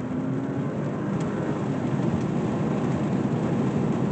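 Volvo S60 accelerating away on a gravel road: its engine running under load over the rumble and crunch of gravel under the tyres, growing louder.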